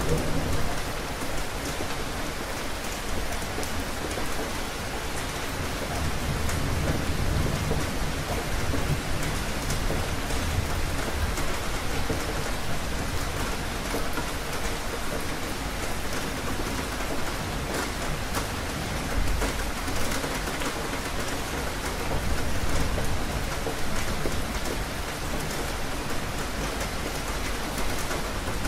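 Steady rain falling, with low rolls of thunder rumbling up several times through it.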